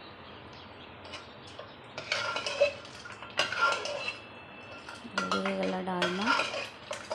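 Steel ladle stirring thick dalma in an aluminium pressure cooker, scraping and clinking against the pot's sides in three bouts, about two, three and a half, and five seconds in.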